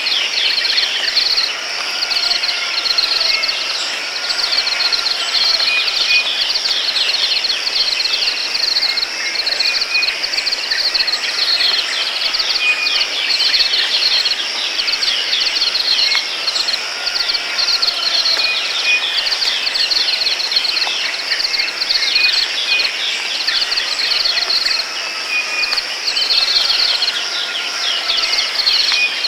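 Dense, steady chorus of crickets and other insects, with short chirps repeating throughout and a soft falling call every few seconds.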